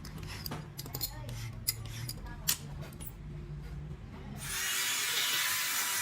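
Scattered sharp clicks and clinks of tools over a low hum, then about four and a half seconds in a sudden switch to a louder, steady hiss.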